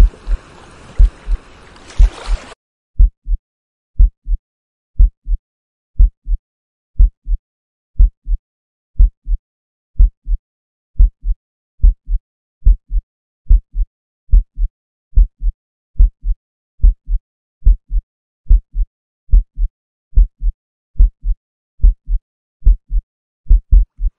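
Heartbeat sound, a slow steady lub-dub of deep paired thumps at about one beat a second. A rushing, water-like hiss runs under the first couple of seconds and then cuts off suddenly, leaving the heartbeat alone.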